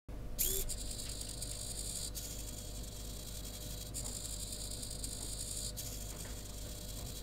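Small RC hobby servo sweeping back and forth without pause. Its little geared motor whirs, and the sound changes about every two seconds as it reverses at each end of its travel.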